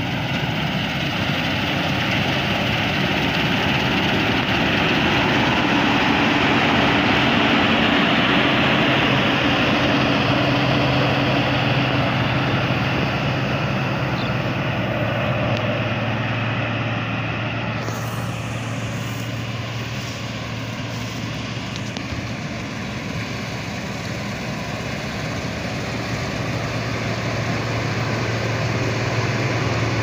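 New Holland combine harvester running at work as it cuts and threshes rice: a dense, steady engine and machinery noise with a constant low engine tone. The sound shifts abruptly about two-thirds of the way through.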